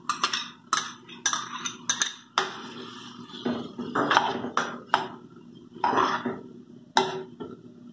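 A metal spoon scraping and knocking against a small bowl and a metal pan as cream is scraped out and stirred into the chicken stroganoff. The strokes come sharp and irregular, roughly one every half second.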